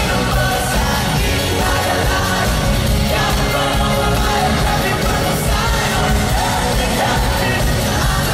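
Pop-rock band playing live with a lead singer over full drums and instruments, the sound of a concert through a large PA, with some yelling from the crowd.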